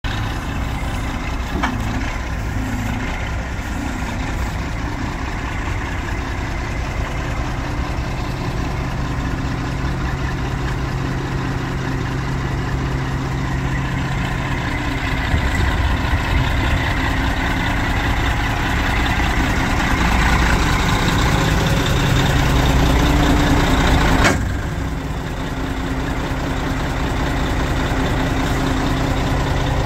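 Heavy diesel engine of a Kenworth T800 rollback truck idling steadily. It grows louder about halfway through, then drops back suddenly with a click near the end.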